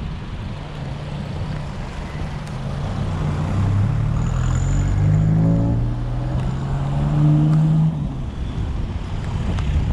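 A car engine hum that grows louder and rises in pitch as it accelerates, over steady wind and wet-road noise, then drops away abruptly about eight seconds in.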